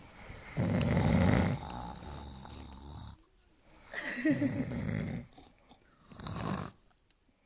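A man snoring loudly in three rattling snores: a long one starting about half a second in, another about four seconds in, and a short one near the end.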